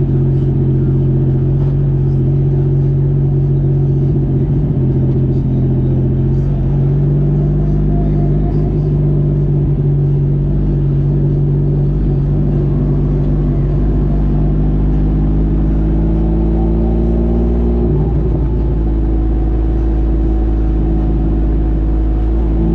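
Motorcycle engine running steadily under way, its pitch drifting slowly upward and dipping briefly about three-quarters of the way through, over a constant low rumble.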